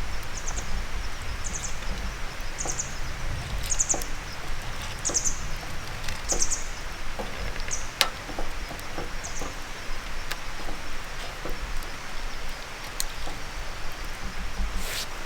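Wood campfire crackling with scattered sharp pops, one of them louder about eight seconds in. A bird gives a short high call over it about once a second for the first nine seconds or so.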